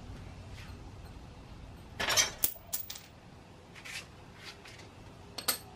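Metal tools clinking at the rear axle of a Sur-Ron Light Bee: a short loud rattling clatter about two seconds in, then a few scattered sharp clicks.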